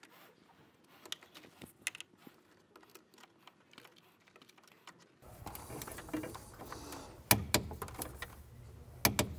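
A 3/8-inch ratchet clicks in short strokes as it snugs down a steering rack mounting bolt, giving a run of faint quick clicks. Near the end come a few sharper clicks as a torque wrench brings the bolt to its 24 Nm setting.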